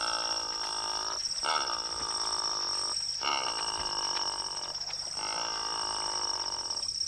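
Four long, rasping croaking calls in a row, each lasting over a second, over a steady high-pitched insect whine; the sound cuts off suddenly at the end.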